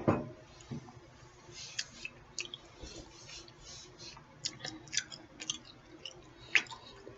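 A person eating close to the microphone: wet chewing with sharp mouth clicks and lip smacks, loudest near the end, after a short loud low sound at the very start.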